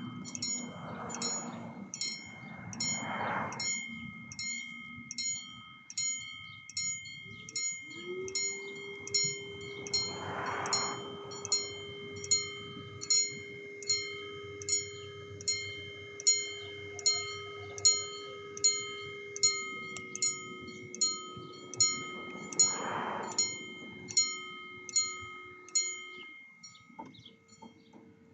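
Railway level-crossing warning bell ringing on and on, about one and a half strikes a second. About eight seconds in a long, steady low tone joins it, dips slightly in pitch partway and stops a couple of seconds before the end, as the bell rings on.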